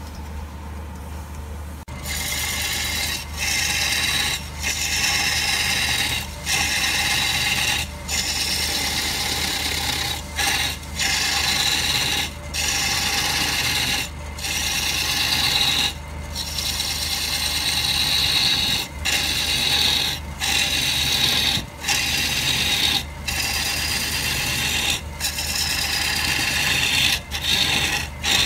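Turning tool cutting a log spinning on a wood lathe: a loud scraping hiss of wood being cut into shavings, starting about two seconds in and broken by short gaps every second or two as the tool comes off the wood. A steady low hum from the lathe runs underneath.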